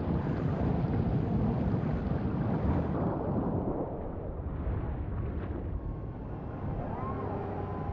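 Rushing underwater water surge through a pipe: a dense, low churning rumble that is loudest in the first few seconds and then eases. A faint rising and falling tone comes in near the end.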